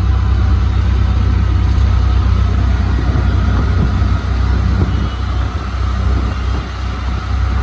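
Auto-rickshaw's engine running steadily with road and wind rush while it drives along, heard from the open-sided passenger seat.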